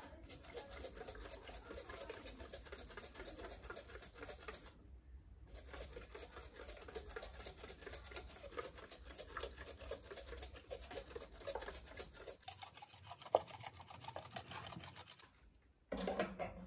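Scratchy rustling of fingers scrunching through a wet curly wig, with squirts of a trigger spray bottle of water, done to bring the curls' coils back. The sound cuts out briefly about five seconds in and again near the end, and one sharp click stands out a little after the middle.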